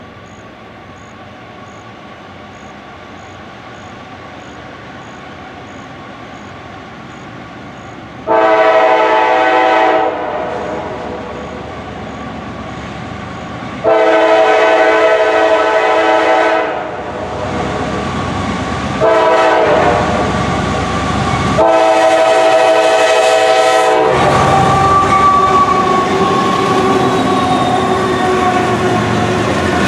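CSX freight train locomotive sounding its air horn, a chord of several tones, in the grade-crossing pattern: long, long, short, long. Its rumble grows steadily as it approaches, and after the last blast the locomotives pass close by, diesel engines and steel wheels on the rails loud.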